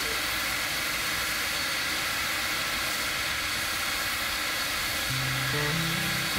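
Narrow-gauge K-36 steam locomotive No. 484 standing, with a loud, steady hiss of escaping steam. A few music notes come in underneath about five seconds in.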